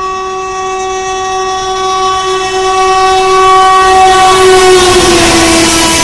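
WAP5 electric locomotive's horn held in one long continuous blast as the express approaches at speed, growing louder. Its pitch drops about five seconds in as the locomotive passes, and the rush of the coaches going by at speed swells beneath it.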